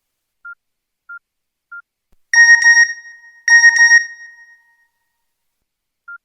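Nokia N95 phone tone: two short fluttering rings a little over a second apart, each a bright tone at several pitches that fades away. Three faint, evenly spaced beeps come just before them.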